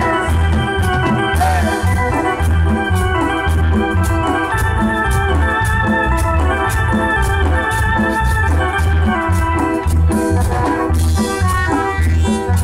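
Live Latin dance band playing an instrumental passage: an organ-sounding keyboard melody in held notes over a pulsing electric bass and drums, with a metal güiro scraping a quick, even rhythm.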